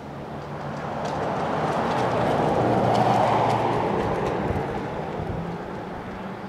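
A vehicle passing by, growing louder to a peak about three seconds in and then fading away.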